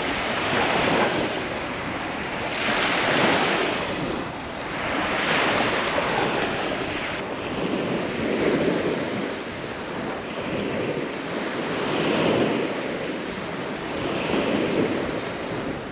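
Black Sea surf washing onto a sandy beach, each wave swelling and falling away every two to three seconds, with wind on the microphone.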